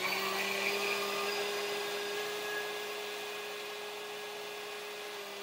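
Vintage electric stand mixer running steadily, its beaters whipping mashed potatoes; the motor whir has a steady hum, settling slightly higher in pitch in the first second and then growing a little quieter.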